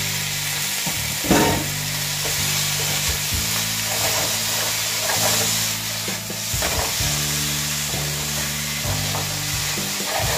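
Sliced tomatoes, onion and garlic sizzling in hot olive oil in a frying pan, a steady hiss. A silicone spatula stirs them, scraping and knocking against the pan, with the loudest knock about a second in.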